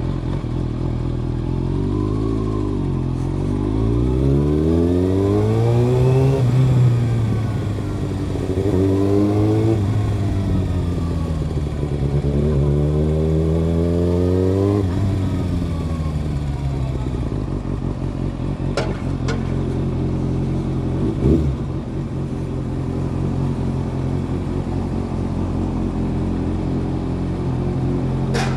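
Kawasaki ZX-6R's inline-four engine pulling hard through the gears. The revs climb and drop sharply at each of three upshifts, then the engine holds a steady drone for the second half. There is one short knock a little past the middle.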